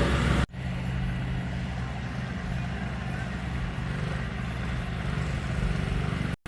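A motor engine running steadily with a low, even hum. The sound cuts out sharply for an instant about half a second in and again near the end.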